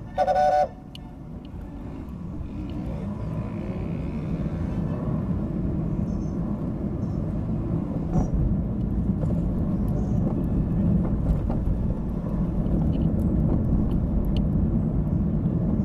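A short vehicle horn toot right at the start, then a steady rumble of road traffic that grows louder over the first few seconds, with scattered small knocks and rattles.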